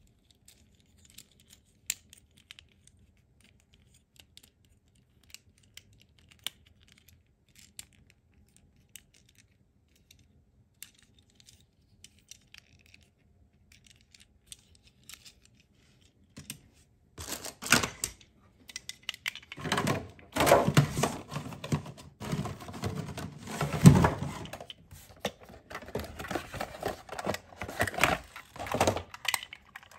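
Small, sparse plastic clicks as the parts of a transforming toy ambulance are folded and snapped into place by hand. About halfway through, louder dense rustling and scraping of a toy box with a clear plastic window being handled takes over.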